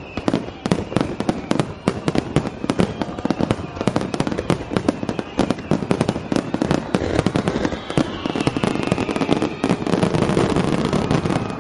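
A rapid barrage of aerial firework shells bursting, several bangs a second overlapping one another. Near the end it thickens into a continuous rumble.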